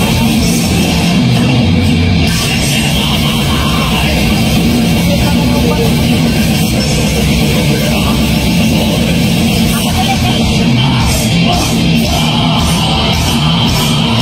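Heavy metal band playing live, with electric guitars, bass guitar and a drum kit, steady and loud.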